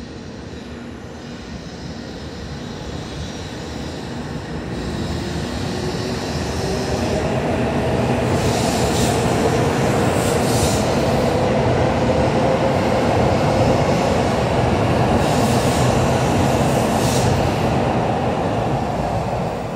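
N700-series Shinkansen train pulling out and accelerating past along the platform. Its running noise swells over the first several seconds and stays loud, with a slowly rising whine from the traction motors, easing off a little near the end.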